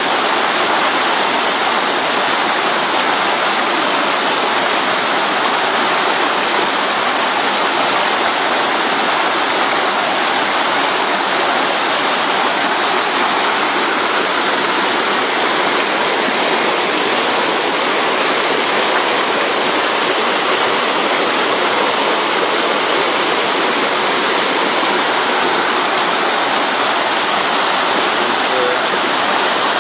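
Steady rush of a mountain stream cascading over rocks, a constant, loud water sound with no change in its flow.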